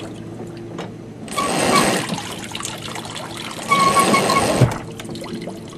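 Outboard motor being hauled up out of the water on its bracket by a line around a winch: two hauls about two seconds apart, each a second-long rush of water noise with a brief squeak.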